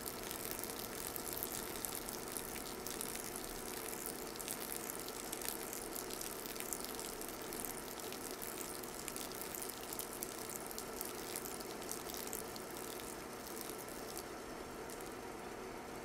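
A thin stream of hot water from a drip kettle pouring onto coffee grounds in a paper filter: a steady soft trickle with fine crackling, part of the later pours of a hand-drip pour-over. It eases off near the end as the pour finishes.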